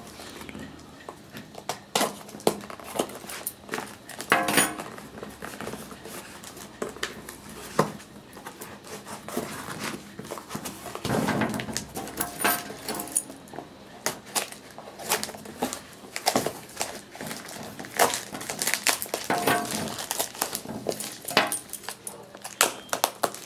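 Hands opening a cardboard shipping box and its packing: an irregular run of clicks, scrapes and rustles from cardboard and packing material being handled.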